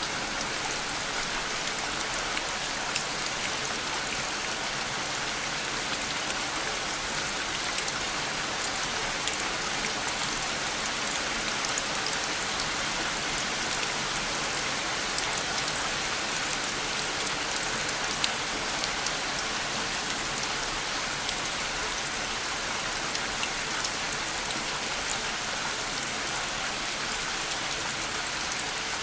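Steady rain falling, a constant hiss of drops on a surface with scattered individual drop ticks standing out.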